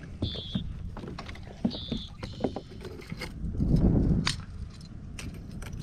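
Small bass being unhooked with pliers at the side of a kayak: scattered metallic clicks of the pliers and the lure's treble hooks, with light splashing. Two short high chirps sound in the first two seconds over a low rumble.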